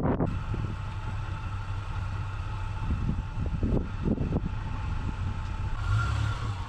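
An off-road SUV's engine running steadily at low revs, a low hum, with a few dull knocks between about three and four and a half seconds in.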